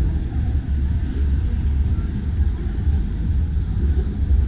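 City street ambience dominated by a low, steady rumble.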